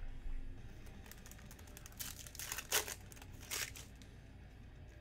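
Plastic wrapper of a trading-card pack being crinkled and torn open, in a few quick bursts of rustling, loudest about two to three seconds in.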